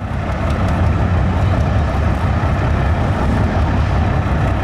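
Soviet BMP-1 infantry fighting vehicle's six-cylinder V diesel engine (UTD-20) running steadily, with a deep, continuous low rumble.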